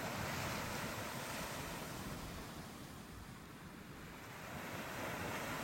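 Ocean waves washing in, a continuous rush that eases about halfway through and swells again near the end.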